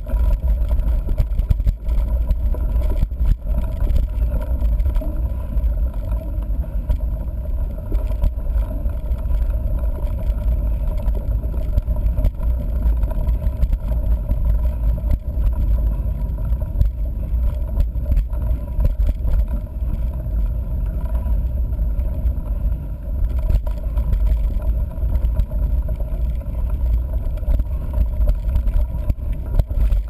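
Steady low rumble of a mountain bike rolling along a dirt road, picked up by a camera mounted on the front fork: wind on the microphone and tyre noise, with frequent small knocks and rattles from the bike.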